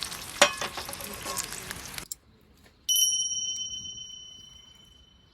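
Bacon and eggs sizzling and crackling in a pan for about two seconds, cut off suddenly. A moment later comes a single clear metallic ding that rings on and slowly fades.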